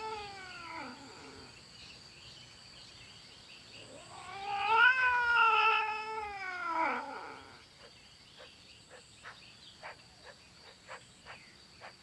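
Cats yowling in a territorial standoff: long, drawn-out threat yowls. One call trails off at the start, and a louder one about four seconds in rises and then falls in pitch over about three seconds. Faint scattered ticks follow.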